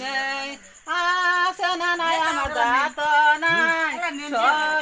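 A woman singing a Bengali wedding folk song (biyer geet) in long, gliding held notes, with a short break for breath about a second in.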